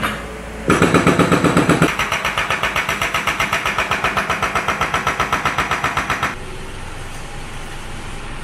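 A long pole rattling along corrugated steel wall cladding: a fast, even clatter of about nine strikes a second, heavier for the first second, that stops suddenly about six seconds in.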